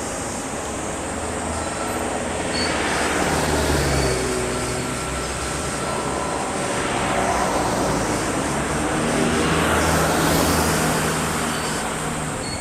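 Motor vehicles passing: a steady low engine hum with two swells of passing noise about six seconds apart.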